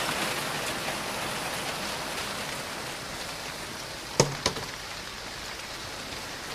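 Steady rain falling, with two sharp knocks about four seconds in, a quarter of a second apart.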